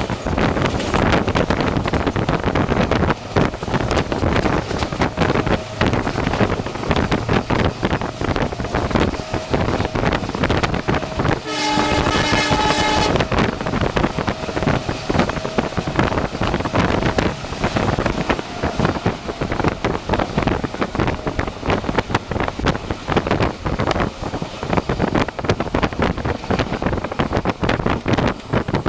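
An express passenger train hauled by a WDP4 diesel locomotive passing at speed, its wheels clattering rapidly and continuously over the rail joints. Near the middle there is one blast of the locomotive's horn, about a second and a half long.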